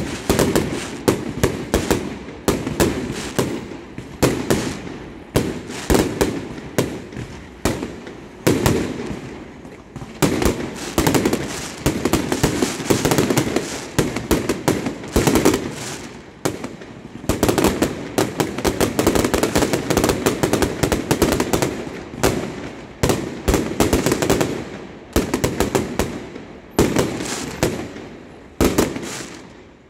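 Fireworks display: aerial shells bursting in a rapid, continuous run of bangs and crackling, several reports a second, thinning out just before the end.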